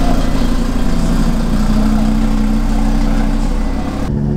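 Audi RS3's built turbocharged five-cylinder engine running as the car drives along at a fairly steady engine speed, with road and wind noise. The sound changes abruptly near the end.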